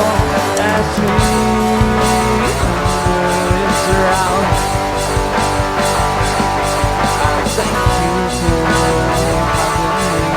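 Rock band playing an instrumental passage: guitar over bass and drums with a steady beat.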